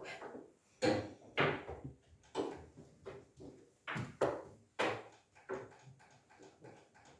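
Irregular series of sharp knocks, about a dozen in seven seconds: chess pieces being set down on a board and a chess clock's buttons being pressed.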